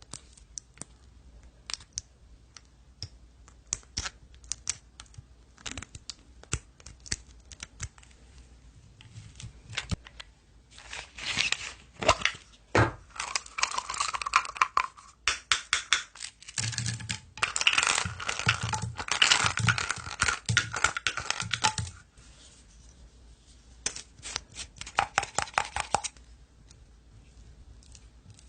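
Slime being played with by hand: scattered sharp clicks and pops, then about ten seconds of dense crackling squishes, then a quick run of clicks again.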